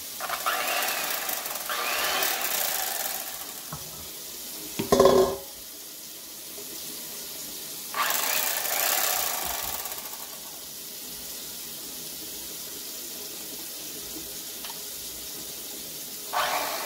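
Corded electric fillet knife switched on and run in short bursts of a few seconds, three times: at the start, about eight seconds in, and just before the end. A sharp clack about five seconds in is the loudest sound. The knife's running doesn't sound right to the owner.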